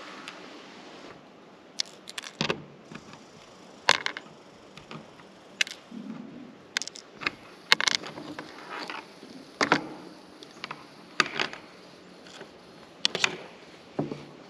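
Irregular sharp clicks and small handling noises from a hand wire stripper and thin stranded wires being stripped and twisted together.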